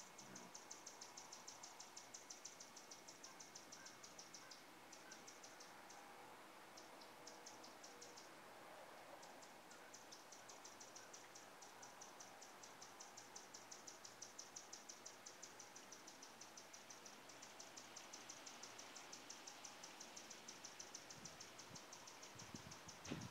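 Faint, high-pitched insect chirping in a fast, even pulse that stops briefly a few times. A short thump near the end.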